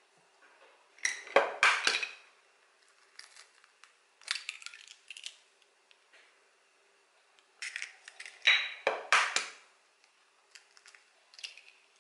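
Eggs being cracked open: two quick clusters of sharp knocks and crunching shell, about a second in and again about eight seconds in, with lighter clicks of eggshell being handled in between.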